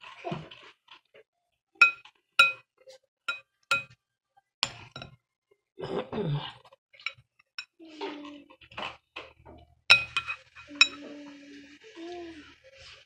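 A metal utensil clinking against a glass bowl of pineapple slices: a run of sharp, ringing taps in the first five seconds, then three more in quick succession around ten seconds in.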